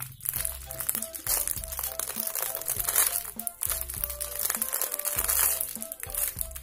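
A clear plastic bag crinkling and crackling as it is squeezed and handled around a foam squishy toy, over background music with a short repeating melody and bass notes.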